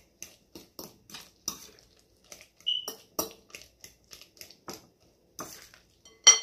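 Metal fork mashing overripe plantains in a glass bowl: uneven soft taps and scrapes of the fork against the glass, two or three a second, with a brief high squeak a little under three seconds in. Near the end the fork strikes the bowl in a sharp, ringing clink, the loudest sound.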